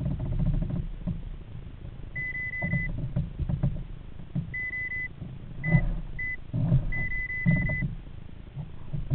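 An electronic device beeping at one steady high pitch, in short and longer stretches, over irregular thumps, knocks and rustling as things are handled in a kayak.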